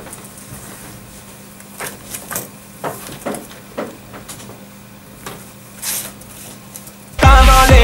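Laptop keyboard taps and papers rustling, scattered and light against a faint steady hum. About seven seconds in, loud electronic dance music with a heavy beat starts abruptly.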